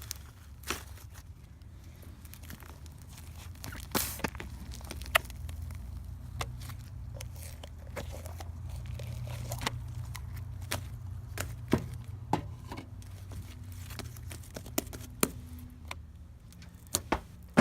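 Hands playing with slime: irregular sharp pops and clicks over a low steady hum.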